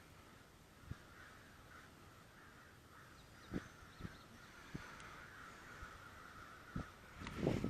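A flock of crows cawing continuously, worked up by something out of sight, which the paddler takes for a crow fight or some animal. Several dull knocks break in, the loudest near the end.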